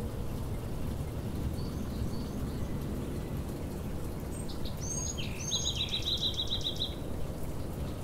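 Steady low outdoor background rumble. Faint high chirps about two seconds in; about halfway through, a songbird sings a few quick down-slurred notes, then a fast even trill of about ten notes.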